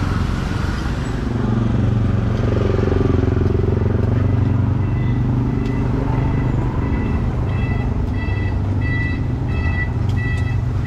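Street traffic: a motor vehicle's engine running close by with a steady low rumble. About halfway through, an electronic beeping joins it, short even beeps about two a second.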